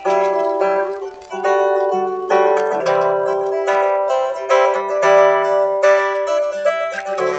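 Solo guitar improvising: picked notes and chords ring out one after another over a recurring held note.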